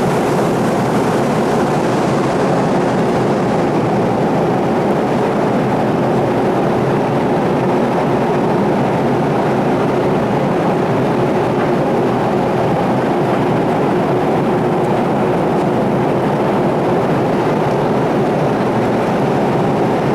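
Steady, unchanging drone of a passenger ship underway, with a faint hum running under it.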